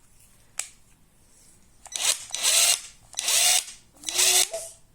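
Parkside 20 V cordless impact wrench run briefly three times with nothing on it: three short trigger pulls about a second apart, the motor whirring up in each.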